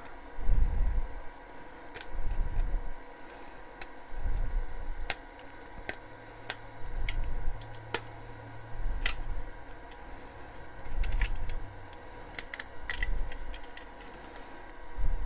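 Handling noise of a hard PLA 3D-printed figure being turned over in the hands close to the microphone: muffled low bumps every second or two, with light clicks and taps of fingers and plastic.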